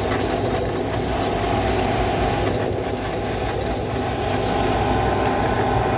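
Steady grinding from a spinning part, with short high-pitched squeaks coming in clusters in the first second or so and again about halfway through.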